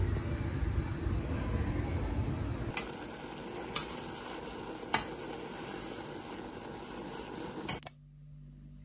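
Kitchen sounds: a low rumble, then a utensil clinking sharply against a pan or dish four times over a steady hiss. Near the end it cuts off to a faint room hum.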